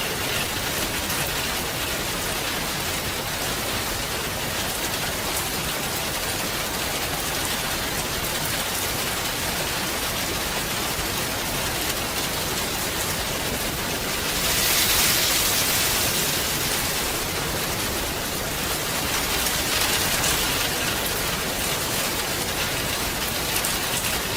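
Steady rain falling, swelling louder for a couple of seconds about fifteen seconds in and again around twenty seconds.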